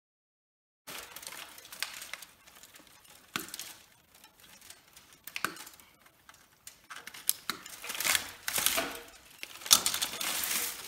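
Cut copper stator windings clattering and clinking as they are pulled out of a large generator stator by hand, with irregular knocks and scrapes of metal on metal. It starts about a second in and grows busier and louder in the second half.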